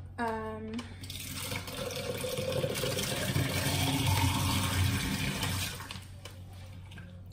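Water running from a kitchen tap. It starts about a second in, grows louder, and stops a second or so before the end.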